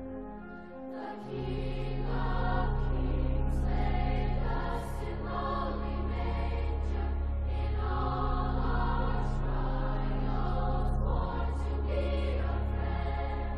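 Choir singing over long, held low bass notes, with a brief break between phrases about a second in.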